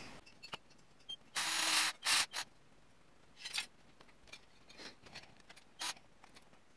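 Cordless drill run in short bursts, its bit boring out the cable hole in a plastic antenna housing. The longest burst, about half a second, comes a little over a second in, with two shorter bursts just after and a few brief ones later.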